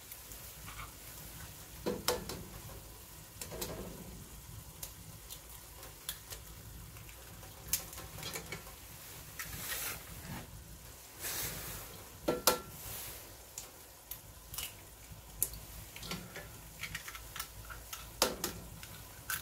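Eggs cracked against a cast-iron Dutch oven and dropped into food sizzling in it: sharp taps every few seconds over a faint, steady sizzle.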